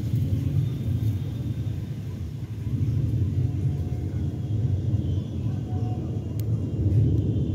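Aeroplane engines droning as a low, steady rumble overhead, swelling and fading slightly. A short sharp click comes about six seconds in.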